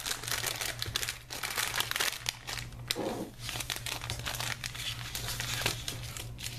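Crinkly plastic wrapper and paperboard box of a Japanese DIY candy kit crackling and rustling as they are handled and opened, with foil powder packets pulled out and laid down.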